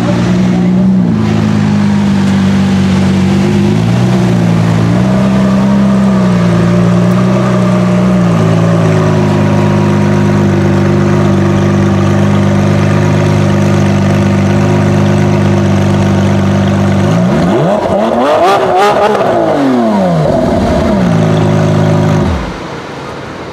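Lamborghini Aventador SVJ's V12 idling, its note shifting slightly now and then. About two-thirds of the way in it is revved once, rising and falling over a few seconds, then settles back to idle. Near the end the engine cuts off, the note dropping away.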